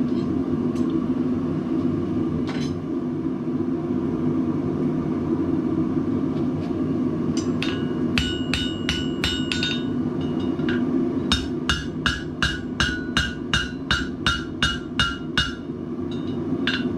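Hand hammer striking red-hot steel on the anvil horn, each blow ringing. Scattered blows start about seven seconds in, then settle into a steady run of about three blows a second, stretching out the pierced hole of a bottle opener. A steady low hum runs underneath.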